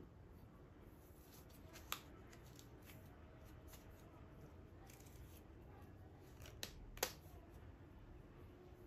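Faint crinkling of a thin wrapping sheet being handled and peeled off a small clay teapot, with a few sharp clicks, the loudest about seven seconds in.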